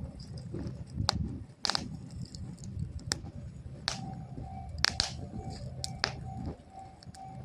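Small bonfire crackling, with sharp pops and snaps every second or so over a low rumble. From about four seconds in, a faint steady pulsing tone joins in.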